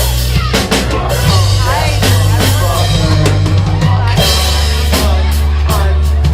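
Live band music: a drum kit beating out a rhythm with snare and bass drum, over held low bass notes that change every second or two, with other pitched instruments or voice wavering above.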